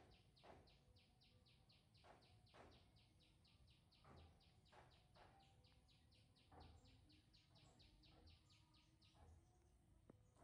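Near silence with faint outdoor ambience: a steady train of high chirps, about four a second, that stops near the end.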